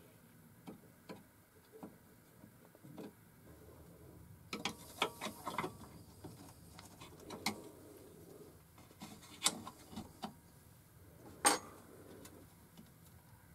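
Scattered light metal clicks and small scrapes of a screwdriver working the screw on a clockwork gramophone's brass speed-control lever, with a sharper click twice near the end.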